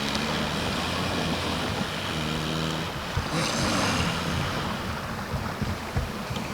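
Northern elephant seals snoring in a pile: low, pitched snores near the start and again about two seconds in, with a few short sharp clicks later, over steady surf.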